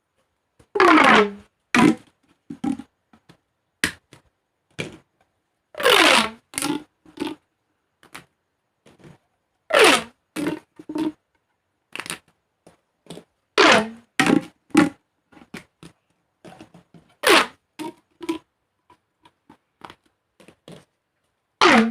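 Plastic pop tubes being stretched and squeezed, making crunchy pops. Roughly every four seconds comes a loud crackling stretch with a falling pitch, followed by a few shorter clicks and snaps.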